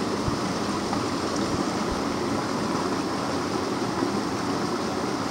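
Steady rush of a shallow creek flowing around a log, with a couple of faint low thuds.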